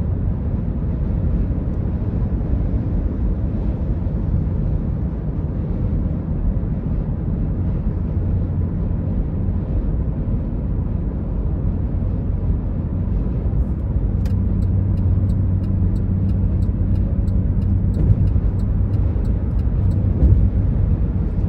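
Steady road and engine noise inside a car driving on the highway: a low rumble with a hum that grows a little stronger about two-thirds of the way in. Over the last several seconds, faint sharp ticks come at a quick, even pace.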